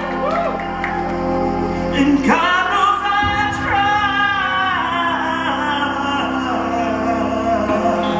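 A singer's voice through a handheld microphone over backing music: a strong sung phrase comes in about two seconds in, followed by long held notes with a waver in them.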